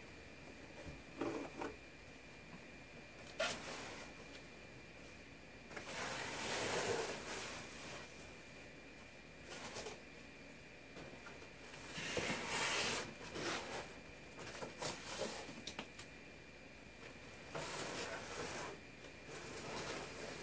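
Cardboard box and packing being opened by hand: intermittent rustling and scraping, three longer stretches of it, with scattered sharp clicks in between.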